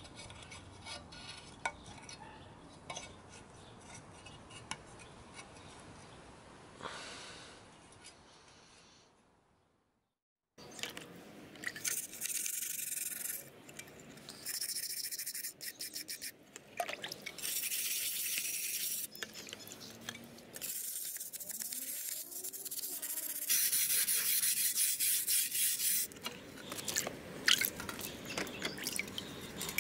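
Small wire brush scrubbing wet, rust-crusted pressed-steel toy Jeep body parts in a tub of water, in repeated scraping strokes with short pauses. Before that, faint rubbing and clicking of hands on the rusty metal.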